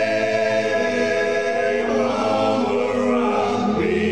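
Four male voices singing a cappella in close harmony, holding one long sustained chord on "Hey". The chord moves to new notes about two seconds in and again near the end, ringing in the stairwell's echo.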